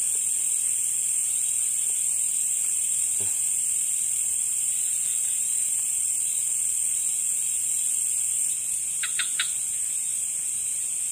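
Steady high-pitched chorus of night insects, unbroken throughout. About nine seconds in come three quick, short chirps.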